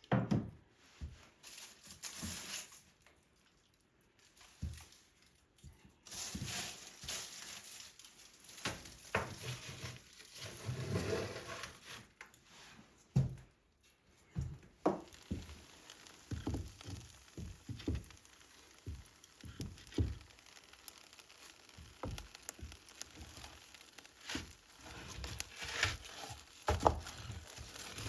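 Irregular knocks, thunks and rustling of things being handled and set down in a small room.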